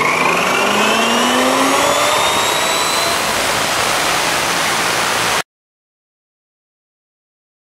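Abrasive chop saw cutting through a bar of 1075 high-carbon steel, a loud grinding with a whine that rises in pitch over the first few seconds. It cuts off suddenly about five and a half seconds in.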